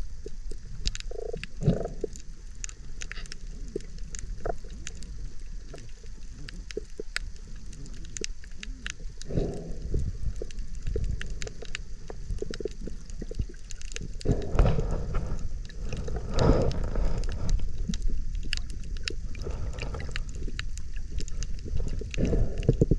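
Underwater sound on a coral reef: a dense, continuous crackle of snapping shrimp over a low rumble, with a few louder muffled surges of water and breath, the biggest about two-thirds of the way through.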